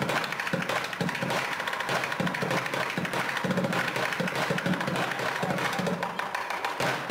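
Bucket drumming: upturned plastic paint buckets struck rapidly in a dense, unbroken run of hits with a hollow, woody knock.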